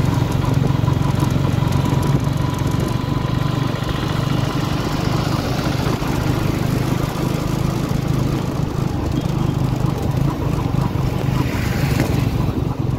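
Motorcycle engine running at a low, steady throttle while riding, held back because the tank is nearly out of petrol, with a rushing hiss over it from about four seconds in.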